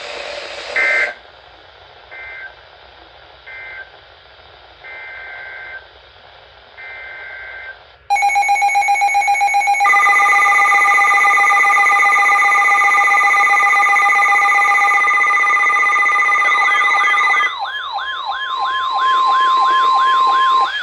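Emergency Alert System tones on a NOAA weather radio broadcast: a few short buzzy two-pitch data bursts that end one tornado warning and head the next. About 8 seconds in, a loud steady alert tone made of several pitches starts, and near the end a warbling siren-like tone joins, leaving a single steady tone.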